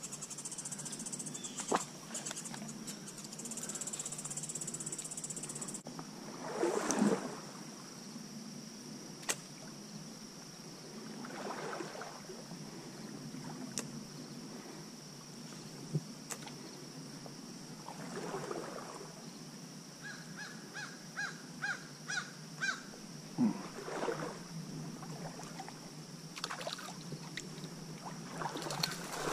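Stream-side outdoor sound: a steady high insect trill over running water, broken by a few brief louder rustles or splashes. About two-thirds of the way in comes a quick run of about seven chirps.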